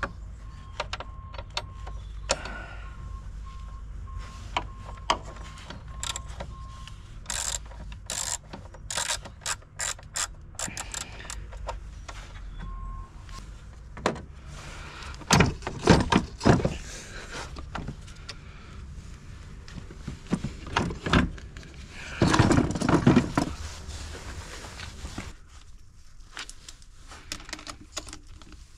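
Hand tools and metal battery fittings clicking, knocking and rattling during work on a car battery, with two louder bouts of clattering midway and later. A faint electronic beep repeats evenly for the first several seconds.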